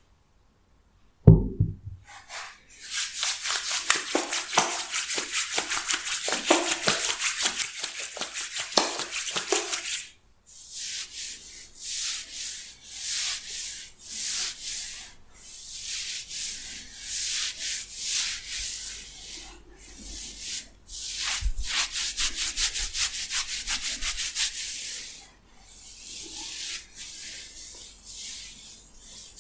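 A thump as a palm comes down on the head, then fingers vigorously rubbing and scrubbing oiled hair against the scalp: a fast, crackly rustle, continuous at first, then coming in pulses, and quieter near the end.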